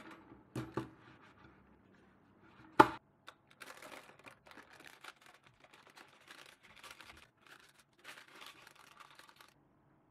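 Close-up crinkling and crackling handling noises: two knocks near the start, one sharp snap about three seconds in, then several seconds of small, irregular crackles.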